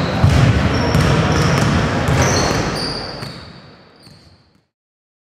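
Gym court sounds: basketballs bouncing repeatedly, with short high-pitched squeaks over them. The sound fades out and ends about four and a half seconds in.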